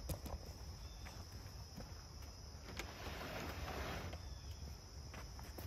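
Insects chirring steadily in woodland, a continuous high buzz, with a few light knocks and a brief scuffing noise about three seconds in.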